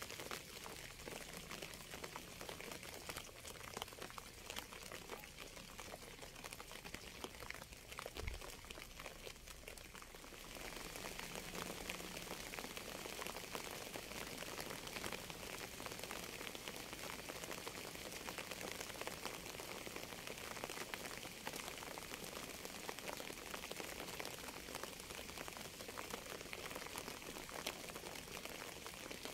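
Rain falling, a steady hiss sprinkled with many small drop hits. About ten seconds in it thickens and grows a little louder.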